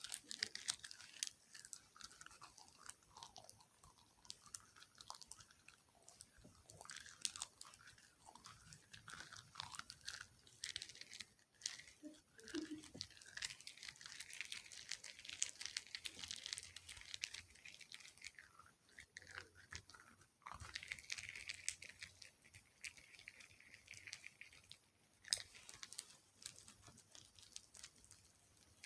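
Close-miked ASMR tapping and clicking: many small, sharp clicks and taps in irregular clusters, with stretches of soft scratchy noise between them.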